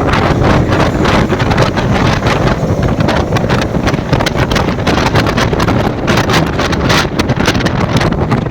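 Loud wind buffeting on the microphone of a moving motorcycle, with rapid gusty crackling over the bike's engine and road noise.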